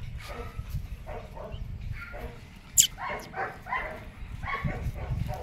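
Young female German shepherd giving short pitched calls, several in quick succession in the second half, with a brief high squeak just before them.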